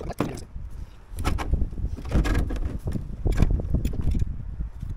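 Sheet-steel rain head being handled and its back edge bent over with a hand tool: a handful of sharp metallic clanks and rattles over a steady low rumble.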